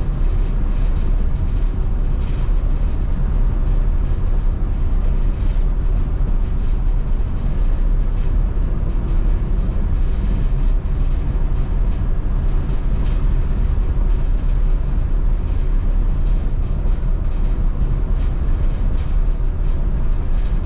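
A 2002 MCI D4500 coach conversion under way on the road: its diesel engine drones steadily together with road and tyre noise, with a few faint rattles and clicks.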